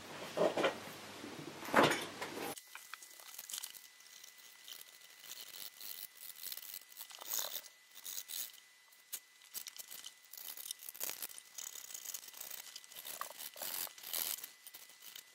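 Hacksaw blade sawing through a foam wing, a run of irregular short scratchy strokes.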